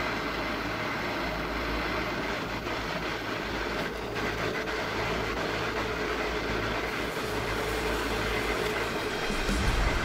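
Handheld butane gas torch burning with a steady hissing flame, heating a steel ax head until it glows orange.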